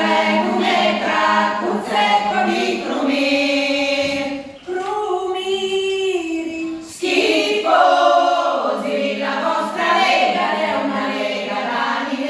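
Women's folk choir of former rice weepers singing unaccompanied in long held phrases, with short breaks about four and a half and seven seconds in.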